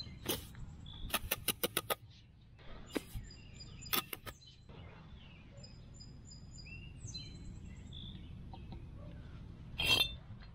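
Steel brick trowel clinking and scraping in wet mortar as a mortar bed is spread and furrowed, with a quick run of taps about a second in. Near the end a brick is knocked down into the mortar with the trowel handle, the loudest strike. Birds chirp faintly in the background.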